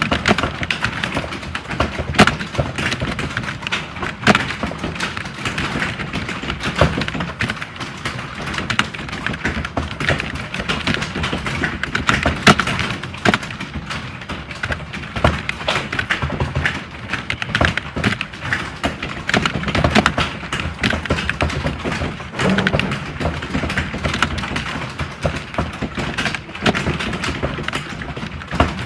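Dense, continuous clatter of computer keyboards being typed on, many keystrokes overlapping without pause: the sound of a typing-test room with candidates typing at once.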